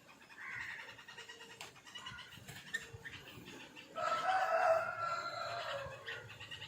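A rooster crowing once, a drawn-out call of about two seconds starting about four seconds in. A fainter, shorter bird call comes shortly after the start.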